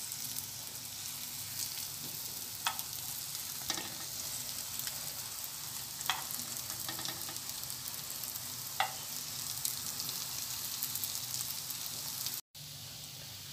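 Egg-dipped bread parcels sizzling steadily in ghee in a non-stick frying pan. A metal spoon clicks lightly against the pan a few times as the pieces are turned over.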